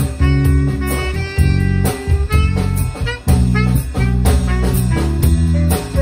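A small jazz band playing live: bass guitar notes and a drum-kit groove under a saxophone melody, in a swing feel.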